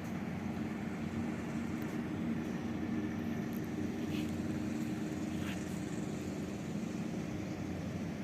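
Fishing boat's Yanmar diesel engine running steadily with an even low drone.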